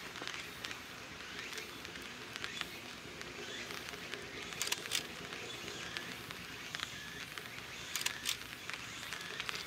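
Outdoor ambience with faint, short chirping calls, and sharp clicks about halfway through and again near the end; the distant ship itself is not heard.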